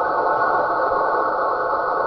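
Steady rushing noise from a radio receiver, confined to a narrow band of middle pitches: an unidentified signal picked up on the air.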